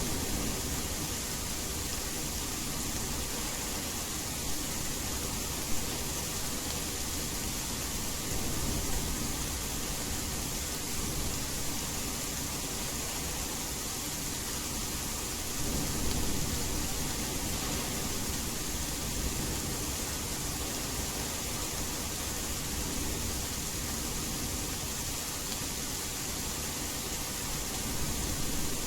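Steady rain hiss blended with white noise, with low rumbles of distant thunder swelling briefly about a third of the way in and again just past halfway.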